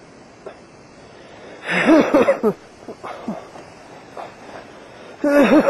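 The injured BASE jumper groaning in pain close to the microphone: two drawn-out, wavering moans about three seconds apart, with faint breaths between.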